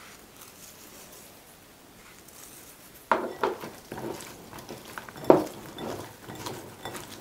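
Hands tossing salted green tomato slices in a glass bowl: a run of soft clicks and knocks of fingers and slices against the glass with rustling between them, starting about three seconds in, with one sharper knock about two seconds later.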